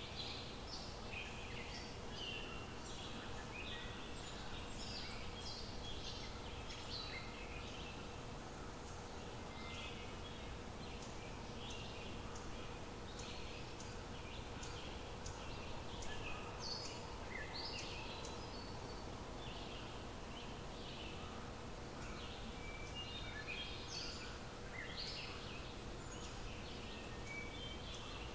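Outdoor ambience of several birds chirping and calling in many short, scattered notes, over a faint steady hum and low background noise.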